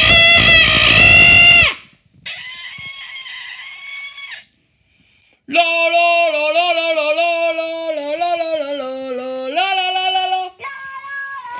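Singing and high-pitched voice from a Talking Tom talking plush toy, which repeats what it hears in a raised, chipmunk-like voice. A loud, short cry comes at the start, then a brief high squeak. From about halfway a sung tune with stepping pitch runs for about five seconds, followed near the end by a quieter, higher-pitched repeat.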